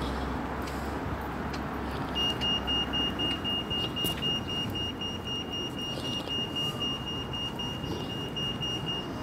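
Pedestrian crossing signal beeping in a rapid run of short, high-pitched pulses for about seven seconds, starting about two seconds in, over the hum of street traffic.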